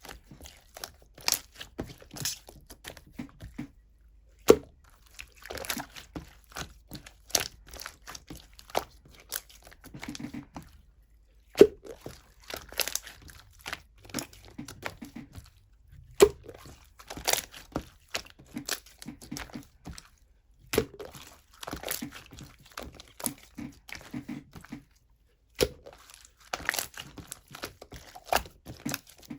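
Clear pink slime with a jelly-like texture being squished and pressed by hand, giving runs of wet, sticky clicks, pops and crackles with short pauses in between.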